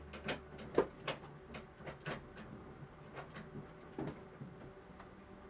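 Scattered sharp clicks inside the cockpit of a stalled BMW M3 GTR race car with its engine off, as the driver flips toggle switches on the centre console. A faint low hum stops at the loudest click, about a second in.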